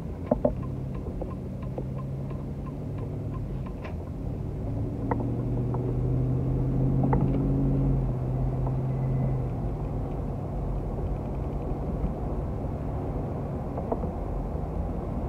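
GMC Yukon driving, engine and road noise heard from inside the cabin; the engine pulls harder for a few seconds near the middle, then eases back. A light regular ticking runs through the first few seconds, with a few sharp clicks.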